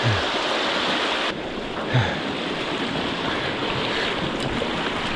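Shallow, rocky river riffle rushing steadily over stones, heard close up.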